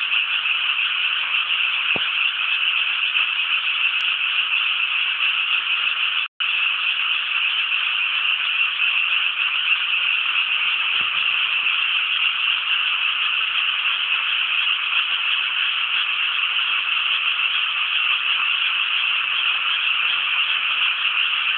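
Dense chorus of many frogs calling together from flooded rice paddies, a steady unbroken mass of croaking. The sound drops out completely for a split second about six seconds in.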